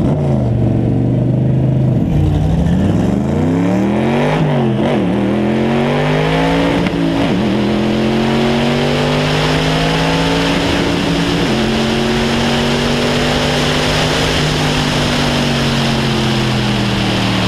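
Cobra roadster's V8 engine launching hard from the drag-strip line and accelerating flat out. The engine note climbs and drops sharply at each of about three gear changes, then holds high before easing off near the end. Wind rush over the open car grows with speed.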